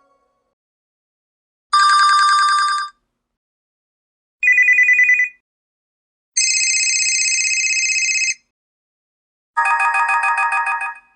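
Built-in ringtones of an HTC DROID Incredible 4G LTE phone: four short, trilling electronic telephone-style rings with silent gaps between them. Each ring is at a different pitch, and the third is the longest at about two seconds.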